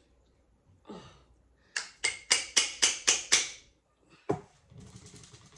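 Screw-top salsa jar being forced open by hand: a quick run of about seven sharp clicks or taps on the lid, about four a second, then a thump and a brief scraping rustle as the lid works loose.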